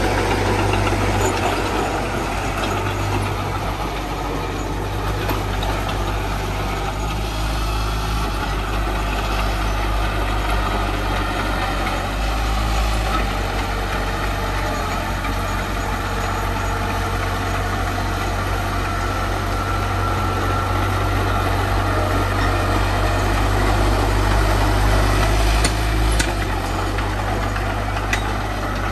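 Diesel engine of heavy earthmoving machinery running steadily with a deep, even sound, a little louder for a few seconds near the end.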